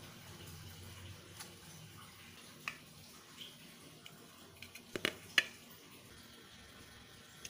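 Light clicks and knocks of a glass jar and a small plate being set down on a cloth-covered table: a handful of separate taps, the sharpest two close together about five seconds in, over a faint steady hiss.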